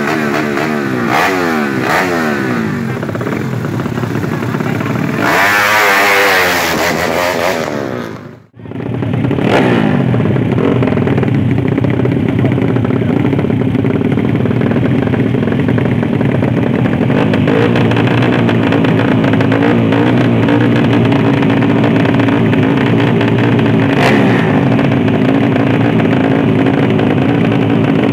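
Drag-racing underbone motorcycle engines revving, the pitch sweeping up and down. About eight seconds in the sound cuts out briefly, then the engine sound returns steadier, with a few more revs.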